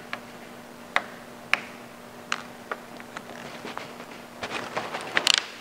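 Vinyl tint film ticking and crackling as it is stretched and pressed by hand over a tail light lens: scattered sharp ticks about once a second, bunching into a run of crackles near the end, over a faint steady low hum.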